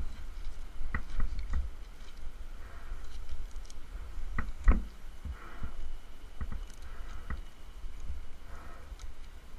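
Gloved hands handling a climbing rope around a Japanese cedar trunk: rope and gloves rubbing and knocking against the bark, with scattered clicks and one louder knock about halfway through, over a steady low rumble.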